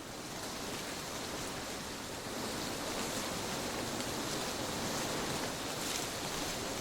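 Trade winds blowing in a steady rushing gust that builds over the first couple of seconds and then holds strong.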